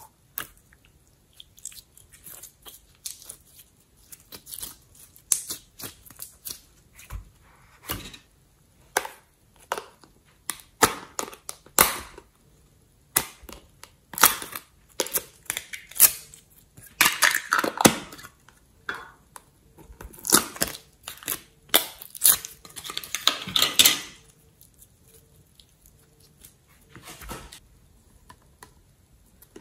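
Store-bought slime and its small plastic containers being handled over a bowl: irregular clicks and crackles of plastic lids and packaging being opened, mixed with bursts of slime being squeezed and squished.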